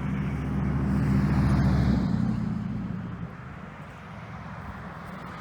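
A motor vehicle driving past, its engine running loudest a second or two in and then fading away.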